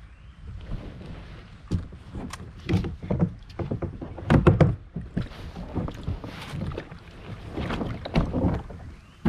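Plastic sit-on-top kayak hull knocking, thudding and rubbing irregularly as the paddler shifts his weight, reaches over the bow and begins climbing out into shallow water. The loudest knocks come about halfway through.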